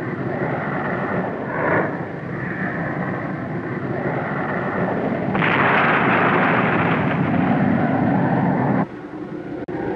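Jet fighter noise on an old film soundtrack, a steady rushing roar. It grows louder and brighter about five seconds in and cuts off abruptly near nine seconds.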